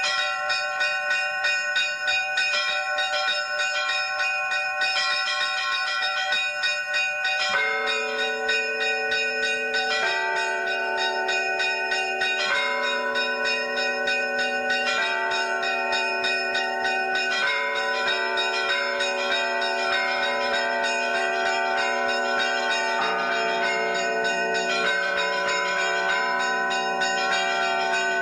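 Bells ringing continuously, many overlapping tones whose pitches shift every few seconds.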